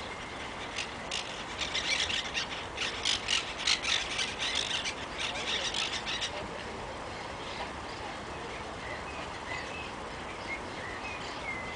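Monk parakeets giving a rapid, harsh chatter of screeching calls through the first half, which then gives way to faint, scattered short chirps.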